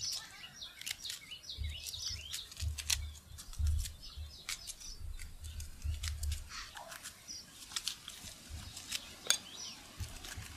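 Small knife slicing through a red onion held in the hand, a run of short crisp cuts, with birds chirping throughout and a low rumble coming and going.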